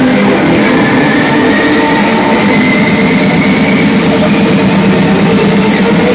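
Electronic dance music played very loud over a nightclub sound system, distorted in the recording: held synth chords with a sweep that slowly rises in pitch.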